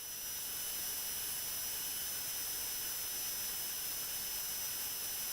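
Random orbital sander running with a vacuum switched on alongside it through an auto switch, drawing off the sawdust. A steady hiss with a thin high whine, rising in over the first second.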